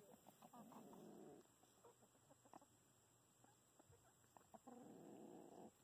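Faint low, rough chicken growls: two of about a second each, one near the start and one near the end, the warning sound of hens facing a new rooster. A few soft ticks in between.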